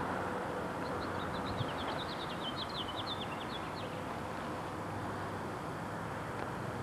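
A small bird twittering: a quick run of short high chirps from about one second in until about four seconds in, over a steady low hum and hiss.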